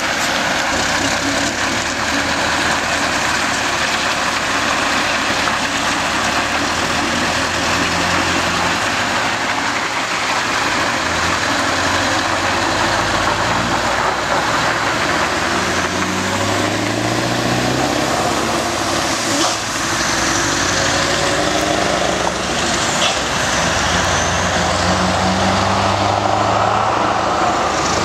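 Scania R580 V8 diesel engine of a loaded timber truck and trailer pulling away and accelerating, its note rising in pitch several times as it works up through the gears.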